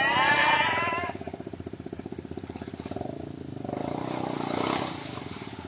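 ATV (quad bike) engine running with a fast, even putter, rising a little in pitch and loudness about four to five seconds in as it is revved, while the machine sits bogged in mud.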